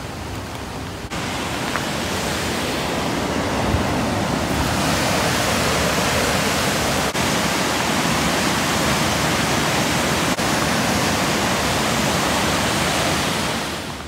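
Waterfall rushing: a steady, even noise of falling white water that sets in about a second in and grows louder a few seconds later.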